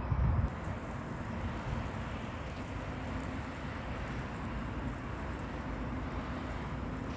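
Steady outdoor background noise, with low wind buffeting on the microphone in the first half second; no bird calls stand out.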